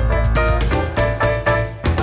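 Background music with a steady beat, piano or keyboard notes over a bass line.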